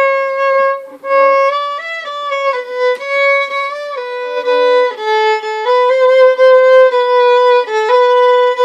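Solo violin bowed at home, a slow melody of held notes that change every half second or so, with a lower string sometimes sounding along with the melody note. The player herself calls her playing terrible.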